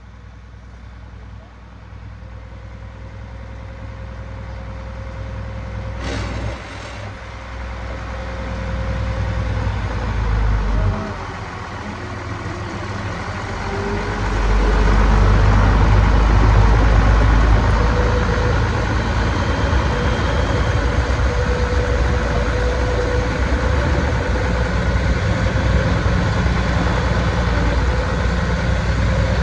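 A motor vehicle's engine running. The low rumble builds over the first fifteen seconds, then holds steady and loud, with a faint tone that dips and rises again in pitch.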